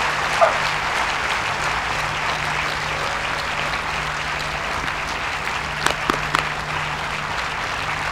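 Large grandstand crowd applauding steadily, with a few sharper single claps about six seconds in.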